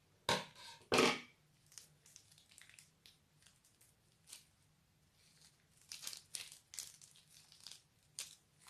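Plastic piping bag crinkling and crackling as a hand squeezes red goo out of it: two loud crackles about a second apart near the start, then scattered smaller crackles and a cluster of them near the end.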